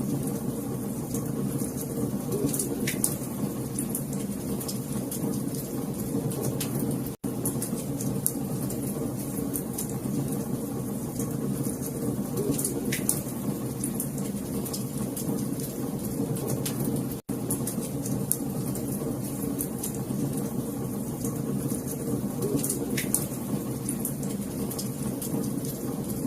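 Wood fire burning in a fireplace: a steady low rush of flame under constant sharp crackles and pops, with a few louder snaps. The sound cuts out for an instant twice.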